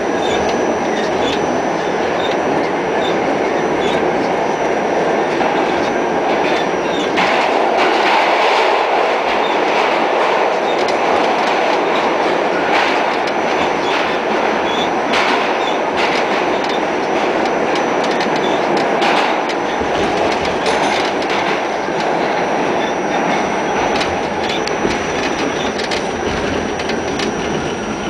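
Pullman Standard R46 subway car running at speed through a tunnel, heard from inside the car: a loud, steady rush of wheel and rail noise with sharp clicks every few seconds as the wheels cross rail joints.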